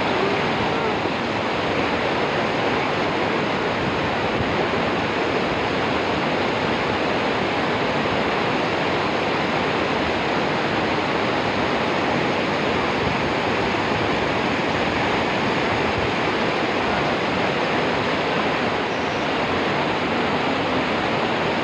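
Waterfall: water crashing down in a steady, loud rush.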